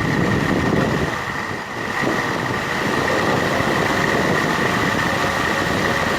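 Toyota 2E four-cylinder engine running, a dense rough engine sound with a steady high-pitched whine over it.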